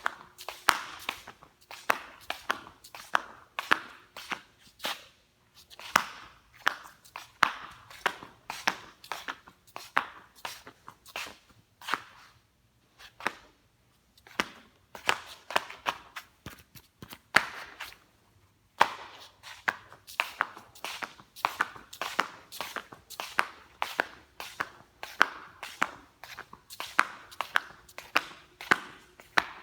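Rubber flip-flops slapping, a steady run of sharp flat smacks about two to three a second that stops briefly twice.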